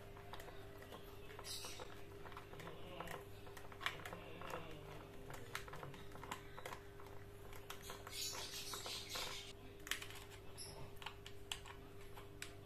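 Faint small clicks and scrapes of a screwdriver turning the terminal screws of a 3-pin switch while a cable is wired to it, with a scratchy rustle about eight to nine seconds in. A steady low hum sits underneath.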